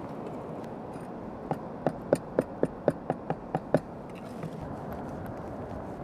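A quick run of about ten sharp, slightly ringing knocks, about four a second, lasting a couple of seconds, made while frozen bait is handled at a plastic tackle tray, over a steady wash of wind and surf.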